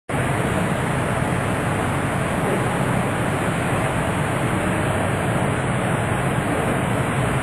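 Steady, even rushing background noise with nothing standing out from it.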